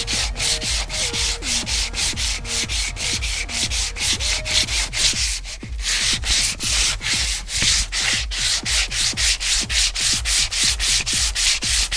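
Hand block-sanding of body filler on a car door panel with 80-grit paper on a 16-inch sanding block. Even back-and-forth rasping strokes, about three a second, with a short break a little past halfway.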